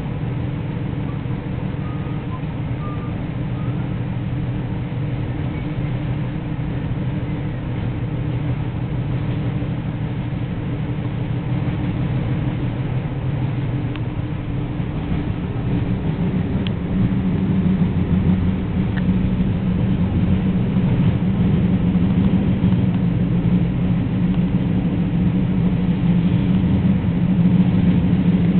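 Amtrak passenger train running at speed, heard from inside a coach: a steady rumble of the wheels on the track and a low hum. It gets louder over the second half as a deeper hum builds.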